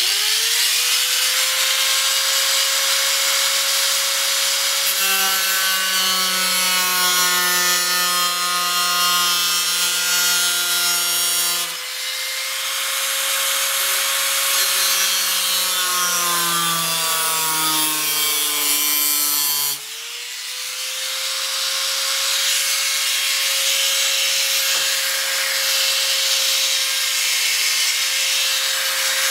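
Small handheld grinder with a cut-off wheel cutting through a fiberglass hood: a steady high motor whine over a loud gritty hiss, dropping lower while the wheel bites. About two-thirds through the tool drops off and spins back up.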